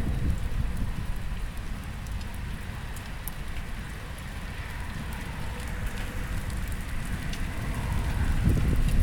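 Rain falling in a thunderstorm, with scattered faint drop ticks. A low rumble of thunder dies away over the first few seconds and swells again near the end.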